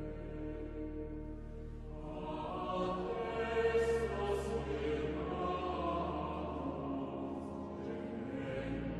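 Background music of slow, sustained choral singing over a low drone, swelling a couple of seconds in.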